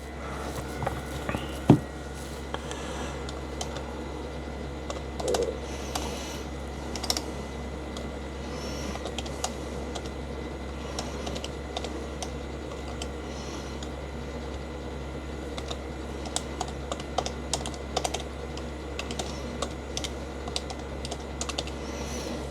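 Typing on a Nsyee foldable Bluetooth keyboard: a continuous run of key taps from its mostly non-clicky keys, with one sharper click about two seconds in.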